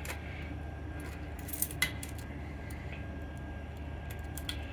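A bunch of keys jangling and clicking against a fire alarm pull station while a key is worked into its second-stage keyswitch. There are two sharp metal clicks about a second and a half in, over a steady low hum and a faint steady high tone.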